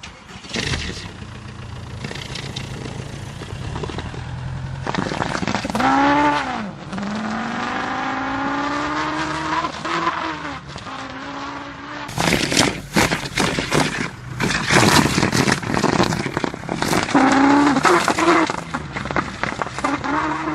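Volkswagen Golf's engine revving up and down through a long hose fitted to its exhaust tailpipe, the exhaust note rising and falling in pitch with the revs. From about halfway, a rough scraping is added as the hose drags along the road.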